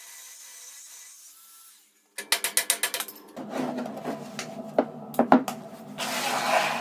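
Old steel car shock absorbers handled on a plywood workbench. After a faint hiss, a quick rattling run of clicks comes about two seconds in, then a few sharp metal-on-wood knocks as they are set down, and a scraping slide near the end, over a low steady hum.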